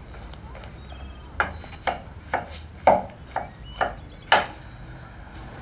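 Knife chopping fresh porcini mushrooms on a wooden cutting board: about seven sharp strokes, roughly two a second, from a second and a half in to near the end.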